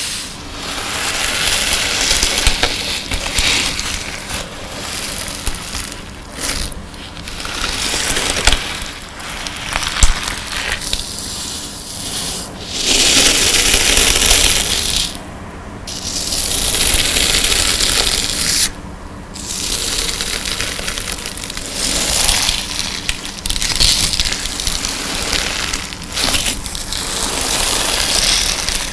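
Hands squeezing, squashing and stretching a colored-sand slime, giving a gritty, crackling hiss in stretches of a few seconds with short pauses between them.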